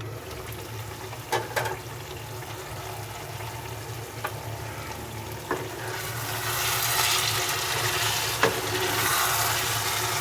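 Aloo matar methi curry sizzling in the pan, with a few sharp clinks of the lid or spoon against the pot. The sizzling grows louder from about six seconds in as the curry is stirred.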